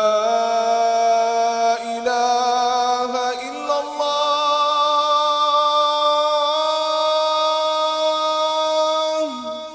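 A muezzin's voice calling the Maghrib (sunset) adhan, the Islamic call to prayer that marks the breaking of the fast. He holds one long, drawn-out note of the 'Ashhadu an la ilaha illallah' line. The note steps up in pitch about three and a half seconds in, then falls and fades with echo near the end.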